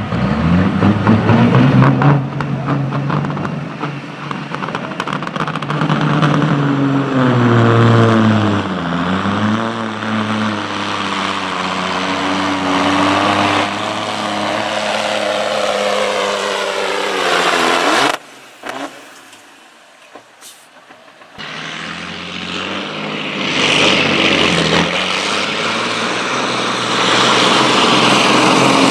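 Semi truck diesel engine pulling a weight-transfer sled under full load, its pitch climbing and dipping, then winding down about 18 seconds in. After a short quieter stretch, another semi's diesel revs up under load near the end.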